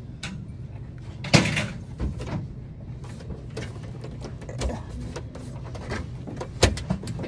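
Knocks and clatter of goods being moved about on metal store shelving as a person reaches up to a high shelf, the loudest knock about a second and a half in, with smaller ones scattered after it.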